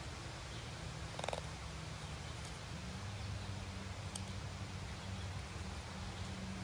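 L.T. Wright Pronghorn knife whittling a dried black cherry stick: faint clicks and scrapes of the blade taking small cuts, over a steady low hum. A brief squeak about a second in.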